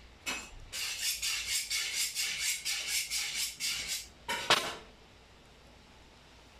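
Cats licking a squeezed lickable cat treat from its tube, a quick run of wet lapping about five licks a second that stops about four seconds in, followed by one sharper click.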